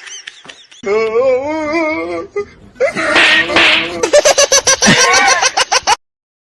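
A person laughing hard: a long, high, wavering squeal, then a breathy hiss, then rapid bursts of laughter that cut off suddenly near the end.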